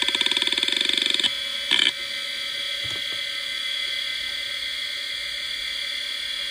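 Conner CFS1621A 3600 RPM hard drive running with a steady whine. For the first second or so it gives a fast buzzing rattle of head seeks, then a short burst just before two seconds in, after which only the steady whine is left.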